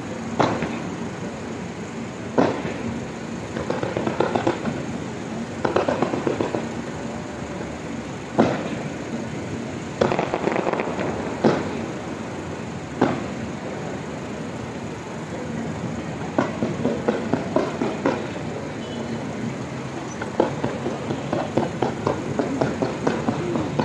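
Fireworks going off: sharp single bangs every couple of seconds, then bursts of rapid crackling pops in the second half.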